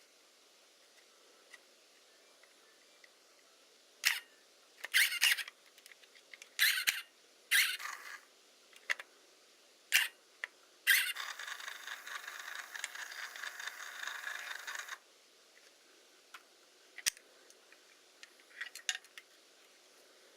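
Hasselblad camera with a Winder CW motor drive: several short mechanical clack-and-whirr cycles, then a motor run of about four seconds that stops abruptly, then a few light clicks.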